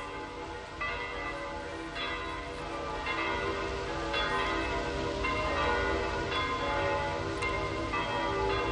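Church bells ringing, a new stroke about once a second, each one ringing on under the next.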